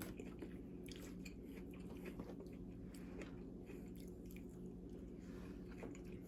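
A person chewing food close to the microphone during a mukbang meal: faint, irregular clicks of chewing and biting.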